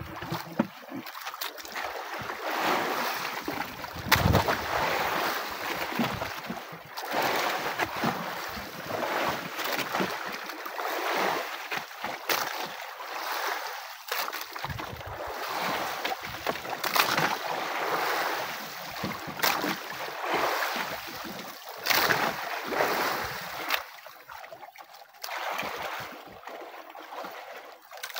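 Wind buffeting the microphone and big sea waves washing against an outrigger fishing boat, swelling and easing every couple of seconds.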